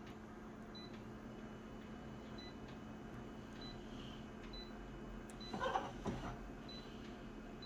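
Colour photocopier idling with a steady low hum, while short faint high beeps sound as its touchscreen buttons are pressed. A brief rustle comes about five and a half seconds in.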